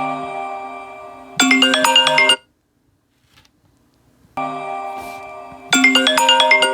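Smartphone ringtone playing a bright chiming melody. It cuts off sharply about two and a half seconds in, leaves about two seconds of silence, then starts again.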